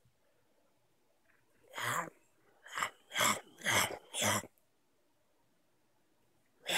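Five short, breathy, cough-like vocal bursts, about two a second, starting about two seconds in after near silence.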